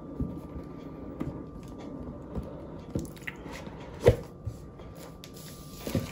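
Handling of a new laptop's box and plastic film wrap: scattered light taps and knocks with soft rustling of plastic, the sharpest knock about four seconds in.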